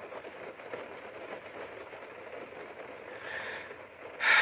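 Steady rain pattering on a roof overhead after the storm has calmed.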